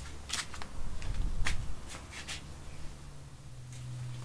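Footsteps and shuffling of a person stepping back, with a few light scuffs and clicks.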